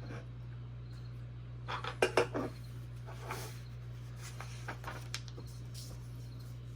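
Small hard parts of a robot kit being handled on a table: scattered clicks and light knocks, with a quick run of sharper clatters about two seconds in, over a steady low electrical hum.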